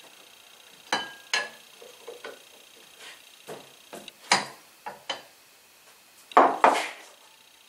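Metal parts of a small cart frame being handled on a workbench: irregular clanks and clinks, about ten in all, the loudest two close together near the end.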